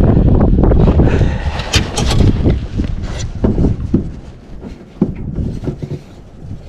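Wind rumbling on the microphone, strongest in the first second, with a scattering of sharp knocks and clicks.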